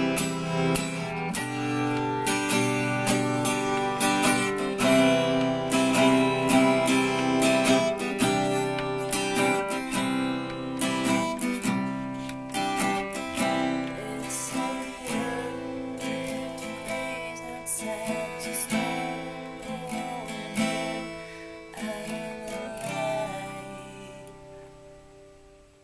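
Acoustic guitar being strummed and picked, the chords ringing, then dying away over the last few seconds as the song ends.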